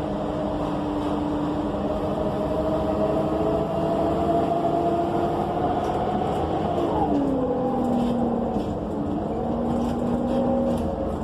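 Cummins Westport ISL G natural-gas engine and Allison automatic transmission of an ENC EZ Rider II bus, heard from inside the cabin, humming and whining as the bus pulls away. The whine climbs slowly, then drops sharply about two-thirds of the way through at an upshift, and holds steady at the lower pitch.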